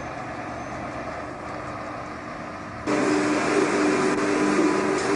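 Steady background noise that, after an abrupt cut about three seconds in, turns into a louder steady machine hum with a few steady tones inside a vehicle workshop hall.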